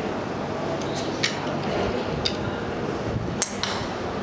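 A golf driver striking a ball: one sharp, loud click about three and a half seconds in, followed closely by a second fainter click. A few fainter sharp clicks earlier are other shots being struck on the range.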